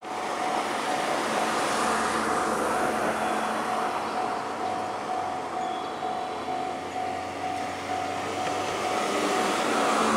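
JR West 223 series electric train running slowly in over the depot points, a steady running noise with a thin steady tone above it.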